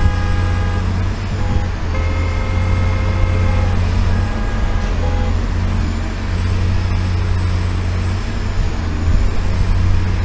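Steady low rumble of road vehicles. Three held, horn-like tones of several pitches, each a second or so long, sound in the first five seconds.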